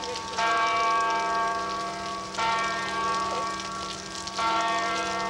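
Large church bell tolling slowly: three strokes about two seconds apart, each ringing on into the next. Rain hiss underneath.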